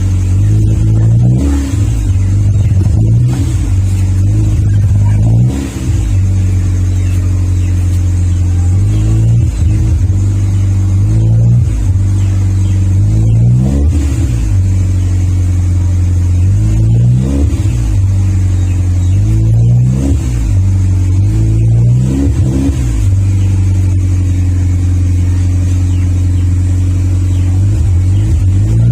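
Car engine idling through a Spoon N1 aftermarket exhaust, blipped into short revs again and again, about nine times, each rising and dropping back quickly. It then settles to a steady idle for the last several seconds.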